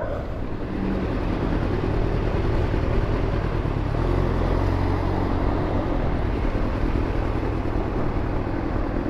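Yamaha FZ1 motorcycle's inline-four engine running steadily while under way, with a steady rush of wind noise on the microphone.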